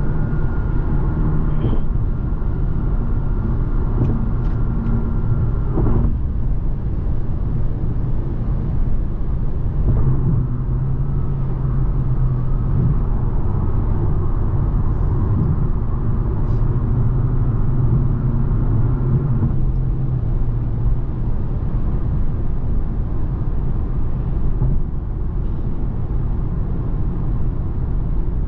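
Infiniti Q50S twin-turbo V6 running under way with a steady low drone and road noise. A thin high whine sits over it, cuts off about six seconds in, and returns from about ten to twenty seconds.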